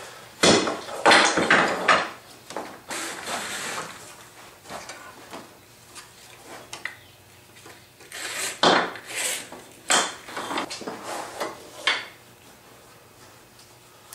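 Band clamp being fitted around a mitred wooden frame: its webbing strap rustles and drags and its corner blocks knock against the wood. The sounds come in irregular bursts, in the first few seconds and again a couple of seconds after the middle.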